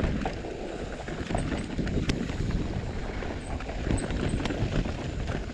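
Electric mountain bike, a Specialized Turbo Levo, going down a rough trail with steps: the tyres roll over dirt while the bike keeps up an irregular clatter of knocks and rattles as it hits the bumps.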